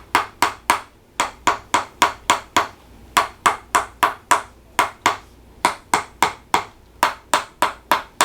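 Rhythmic sharp tapping from a hand-held chiropractic tapping instrument on the lower back, about three taps a second with brief pauses between runs. This is light percussive work meant to loosen a stiff joint.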